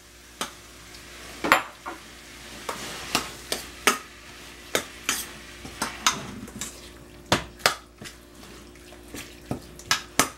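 A spoon stirring a pan of tomato and ground-beef spaghetti sauce: irregular clacks and scrapes against the pan over a steady sizzle.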